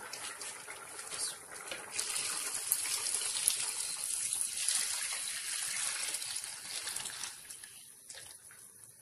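Hot water poured from a steel pot into a large aluminium pot of browned beef pieces, a steady gush of liquid that runs for about seven seconds and then fades out.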